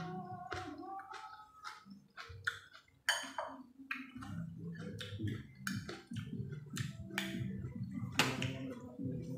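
Close-miked chewing: wet mouth clicks and smacking as food is eaten, with a spoon clinking against a ceramic bowl near the end.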